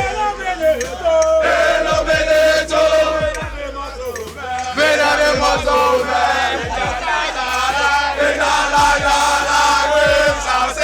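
A crowd of young men chanting a song together in unison.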